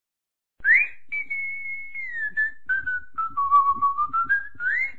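A person whistling a slow, wandering tune: one pure tone that swoops up about half a second in, sinks lower through the middle and climbs again near the end, over faint irregular ticks.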